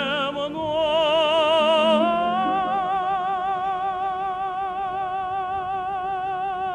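Solo tenor voice holding a long sung note with wide vibrato, stepping up to a higher sustained note about two seconds in, over a steady choral and orchestral accompaniment.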